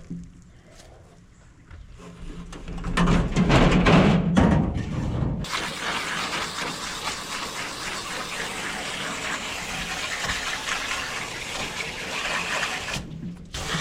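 Water spraying from a hose onto the heat pump's coil to wash the grime out. It surges about three seconds in, then settles into a steady hiss that breaks off briefly near the end.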